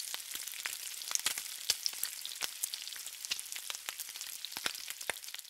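Bacon strips frying on a flat-top griddle: a steady sizzle with frequent sharp, irregular crackling pops of spitting fat.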